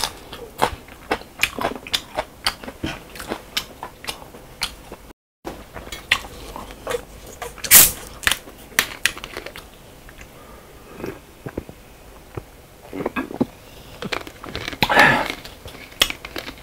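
A person chewing food close to the microphone, with wet smacking clicks throughout. About eight seconds in there is a single sharp hiss as a soda bottle is opened, and near the end a short, louder sound from the throat.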